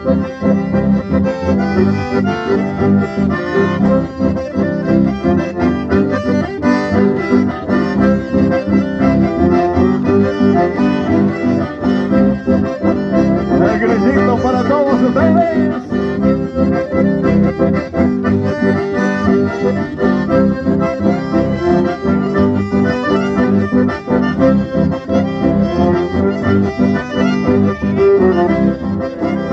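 Live instrumental folk dance music led by several accordions over an electric bass, with a steady, even beat.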